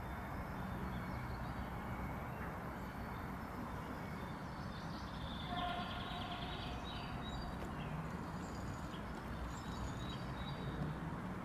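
Burst LiPo battery pack venting smoke with a steady hiss. A brief animal call sounds about six seconds in.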